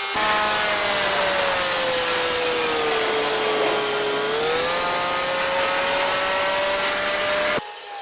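Touchless automatic car wash machine running: a motor whine that sinks in pitch midway and rises again, under a loud hiss. It cuts off suddenly near the end.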